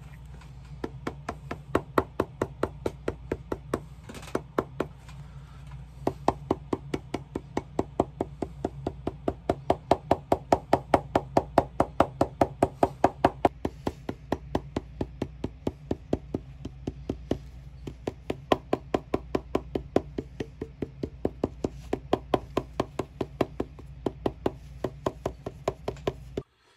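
A cobbler's hammer tapping rapidly on the welted toe of a leather shoe, where nails hold the welt, about four taps a second in runs with short pauses, over a steady low hum.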